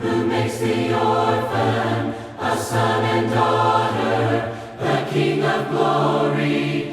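A choir singing a worship song in harmony, holding long notes across several phrases.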